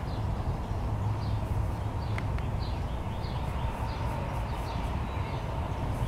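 Small birds chirping in short, repeated calls over a low, steady outdoor rumble.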